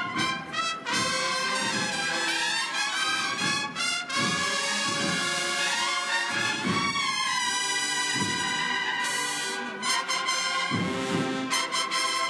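Cornetas y tambores band (bugles and drums) playing a Holy Week processional march: bugle melody over drum strokes.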